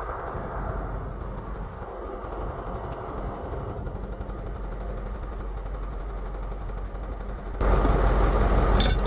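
Flatbed tow truck's engine running steadily, with a low hum under it; about three-quarters of the way through it turns suddenly louder.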